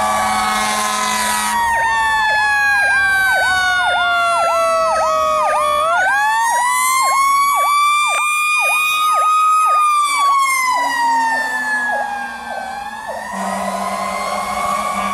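Fire engine warning devices sounding together: a Federal Signal Q2B mechanical siren winding down, spooling back up about 6 s in and coasting down again, layered with a fast repeating electronic yelp from about 1.5 s to about 13 s. Steady low air horn blasts sound at the start and again near the end.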